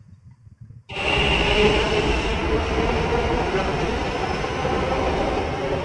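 Metro train running along a station platform: a steady running noise with a faint whine and hum, starting about a second in.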